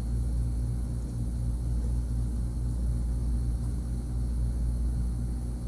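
Steady low hum with a faint hiss behind it, unchanging throughout, like a bench fan or mains-powered equipment running.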